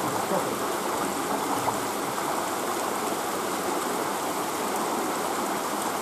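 Steady rushing noise of running water.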